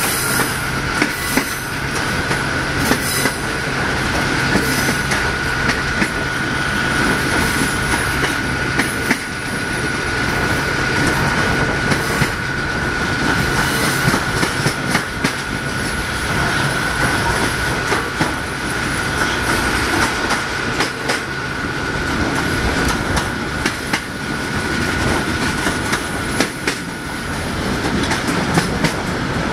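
Passenger train hauled by a CFR LDH diesel-hydraulic locomotive running at speed, heard from an open carriage window: continuous wheel and rail noise with irregular clicks over rail joints, a steady high whine, and a low engine hum that fades about nine seconds in.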